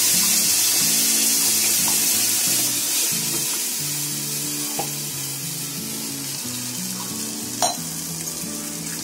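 Ground tomato-peanut chutney poured into hot mustard-seed and curry-leaf tempering oil, sizzling loudly at first and slowly dying down, with a light knock of a utensil on the pan late on.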